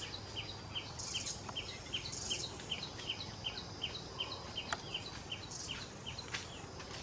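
Forest ambience: a steady run of short chirps, about three a second, with a brief high insect-like buzz now and then over a low background rumble.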